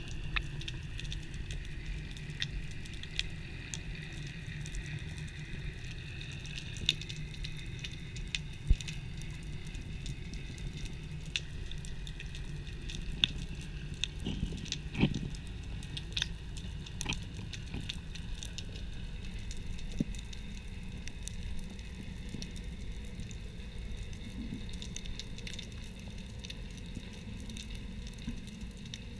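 Underwater ambience heard through a camera housing on a rocky reef: a constant crackle of scattered sharp clicks over a low rumble, with a handful of louder knocks.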